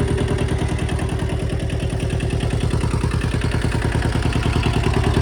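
Kubota L175 tractor's diesel engine running steadily, with an even, rapid firing pulse.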